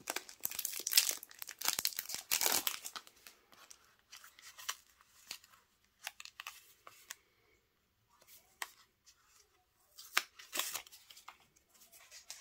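Clear cellophane wrapper crinkling and tearing as it is pulled off a small paper pad. The crackling is densest in the first few seconds, then comes in scattered rustles and clicks with a near-silent pause in the middle.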